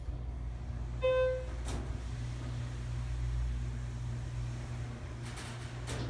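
Schindler hydraulic elevator's pump motor running with a steady low hum as the car travels, with a single short electronic beep about a second in.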